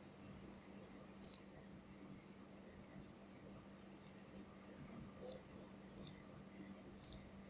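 Computer mouse clicking: short, sharp single and double clicks, a pair about a second in, then singles and pairs every second or so toward the end, over a faint steady electrical hum.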